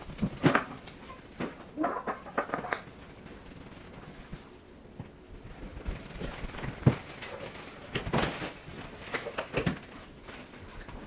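Small dogs moving about on a hard laminate floor and nosing at plastic shopping bags: scattered clicks, knocks and rustles, with the loudest knocks about seven seconds in and between eight and ten seconds in.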